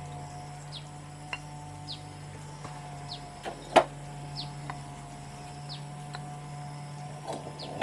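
A single sharp knock a bit under four seconds in, with a few lighter taps, over a steady low hum and short high falling chirps that repeat every second or so.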